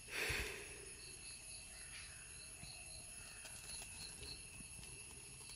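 A match struck on a matchbox: a short scratchy hiss as it flares, just after the start. After it, faint high insect chirps repeat quickly and evenly for a few seconds.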